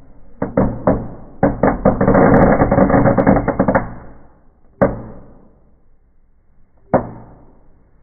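Firecrackers going off inside a wood-burning fireplace. A few separate bangs lead into a fast run of cracks lasting about two seconds, followed by two last single bangs about two seconds apart.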